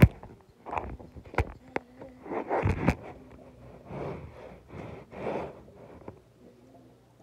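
Handling noise as the recording phone is knocked and rubbed against fabric. There is a sharp knock at the start, a couple of clicks, then several rustling scrapes.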